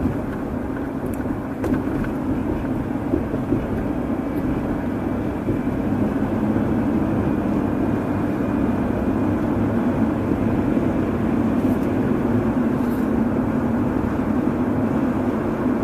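Steady road and engine noise of a car driving at low speed, an even low rumble and hum with no sharp events, growing slightly louder after about five seconds.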